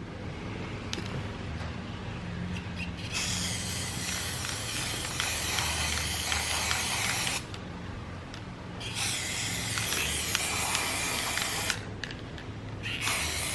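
Aerosol spray can of peelable coating hissing in three long bursts: one of about four seconds starting some three seconds in, a second of about three seconds, and a third starting near the end.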